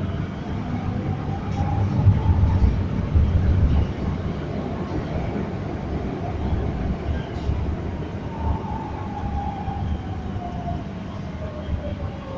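Underground train carriage in motion: a steady low rumble, with the motor whine rising in pitch over the first two seconds as the train speeds up, and falling in pitch from about two-thirds of the way through as it slows.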